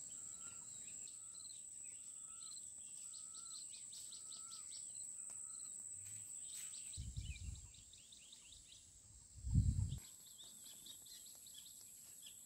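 Rural outdoor ambience: a steady high-pitched insect drone with birds calling, one repeating a short note about once a second for the first few seconds, among scattered high chirps. Two brief low rumbles on the microphone come about seven and nine and a half seconds in, the second the loudest.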